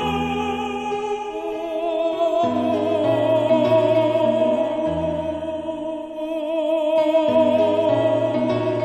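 Background classical music: a high melody held in long notes with strong vibrato, operatic singing, over low accompaniment notes that change every second or two.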